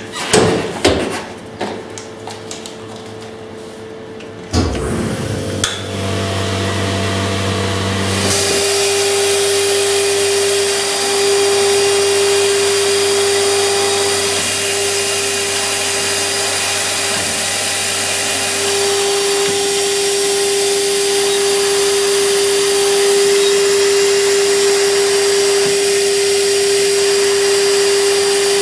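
A few knocks and rustles as a plastic sheet is handled, then a machine motor starts humming about four seconds in. About eight seconds in, a CNC router spindle comes in with a steady high whine, running at 24,000 rpm, over a loud steady hiss of air through the extraction hose, as a carbide engraving tool cuts clear cast acrylic.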